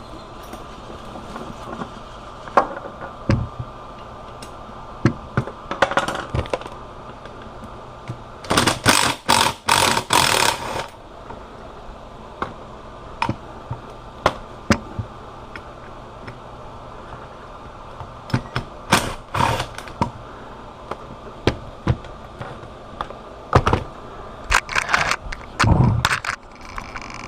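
Intermittent metallic clicks, clinks and knocks of tools and small bolts while the front housing bolts of a Viair 444C air compressor are removed, with a denser stretch of rapid rattling about a third of the way in, over a faint steady hum.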